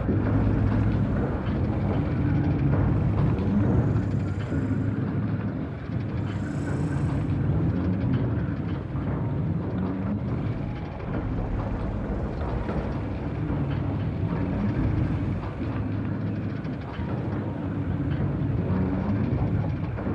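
A motor vehicle's engine running close by, a low drone whose pitch shifts up and down, with two brief high chirps about four and six and a half seconds in.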